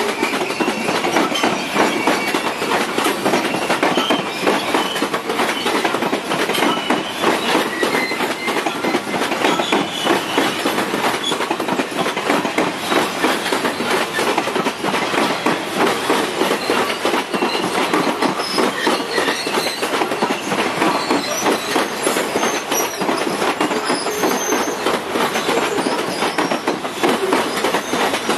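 Freight train of covered hopper cars rolling past close by: a steady clatter of steel wheels over the rails, with short high-pitched wheel squeals now and then.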